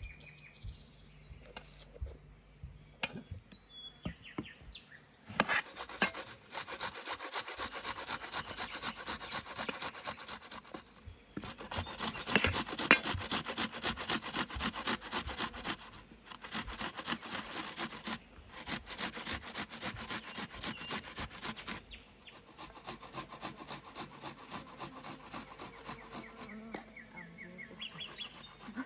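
Onion being grated on a metal box grater: a long run of rapid rasping strokes, starting about five seconds in and pausing briefly a few times.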